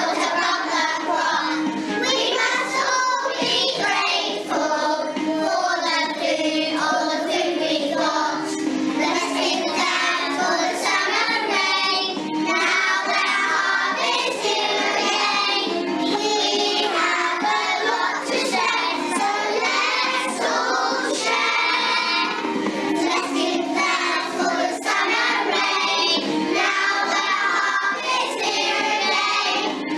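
A group of young infant-school children singing a harvest song together.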